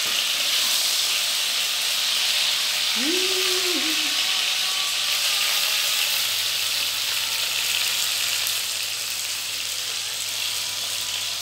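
Longanisa sausages sizzling steadily as they fry in oil in a nonstick pan, the water they were simmered in having cooked off, while a knife turns them in the pan.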